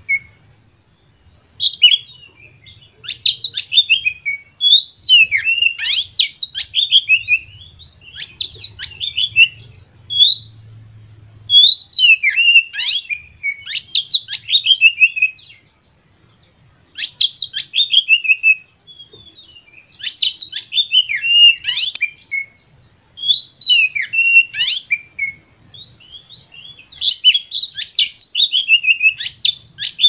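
Male oriental magpie-robin singing in repeated bursts of one to three seconds, each a rapid run of loud whistled notes that sweep downward, with short pauses between bursts.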